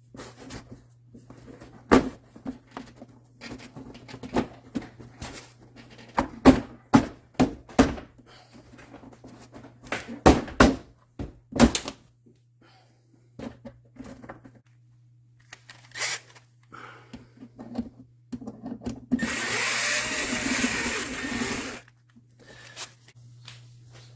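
A series of sharp clicks and knocks of plastic fender-liner push clips and parts being handled and pushed in, then a power drill running steadily for about three seconds near the end.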